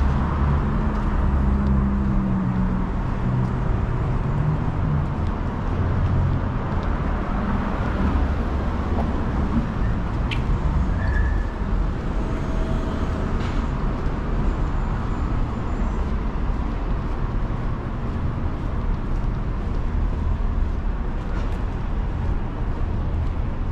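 City street traffic: vehicles running and passing in a steady low rumble, with a deeper engine hum in the first few seconds and a single sharp click about ten seconds in.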